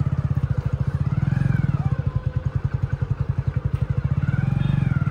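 A small engine running steadily, a low rumble with a fast, even pulsing, with faint voices rising and falling above it.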